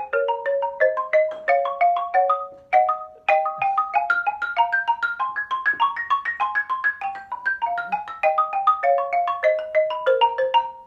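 Xylophone played with two mallets: a practice exercise of quick strokes, about four a second, mostly two notes sounding together. The line climbs stepwise for the first half and works back down, with a brief pause about three seconds in.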